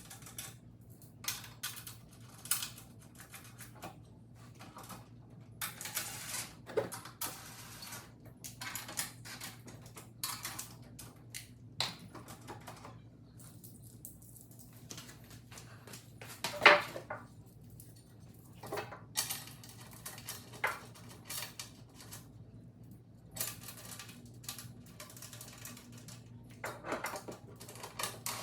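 Sped-up clatter of metal bolts, washers and hand tools, irregular clinks and clicks with one louder clank about halfway through, as mounting arms are bolted onto a steel step rail.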